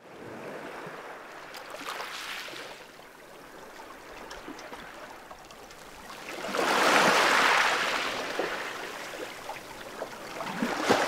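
Rushing, surf-like water noise with scattered small clicks. It swells loudest about two-thirds of the way through, eases off, and rises again near the end.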